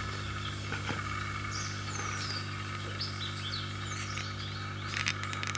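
Forest birds calling on a wildlife documentary's soundtrack, playing through a television: many short chirps and falling whistles over a steady background drone and a low hum. A few short clicks come about five seconds in.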